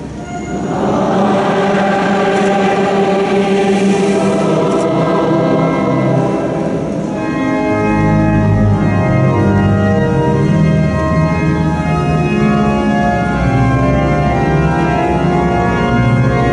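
Church organ playing sustained chords that swell in under a second; about halfway through, deeper bass notes come in beneath them.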